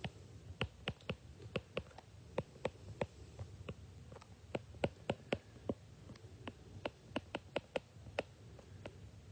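Stylus tip clicking against a tablet screen while handwriting words: faint, irregular taps, a few a second.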